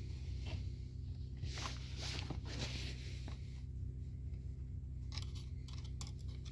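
Scattered crunchy rustles and sharp clicks over a steady low hum.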